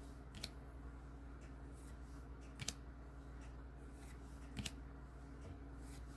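Baseball trading cards being handled and flipped through by hand: a few faint, sharp flicks a second or two apart over a low steady hum.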